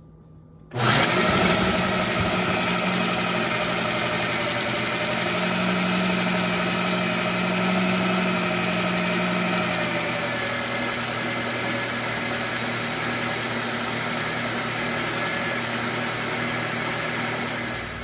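Electric food processor switched on about a second in, its motor whirring steadily as the blade blends crushed chocolate sandwich cookies and cream cheese into a dough; its note shifts slightly about ten seconds in.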